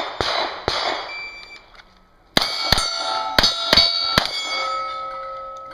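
Pistol fired five times in quick succession at steel targets, each shot answered by a metallic clang from the plates. The steel plates ring on with a steady, slowly fading tone after the last shot. Two shots are heard in the first second, before the string.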